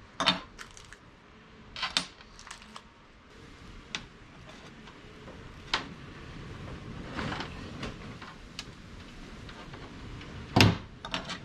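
Handling noises at a workbench: scattered clicks, clacks and rustles as a plastic bag of small connector parts and a hand crimping tool are picked up and set down, with the loudest clack near the end.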